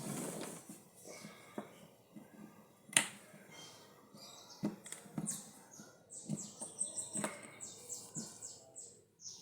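Hand handling noise from drill parts and tools on a workbench: scattered light clicks and knocks, one sharper click about three seconds in, and a quick run of short brushing or scraping strokes near the end.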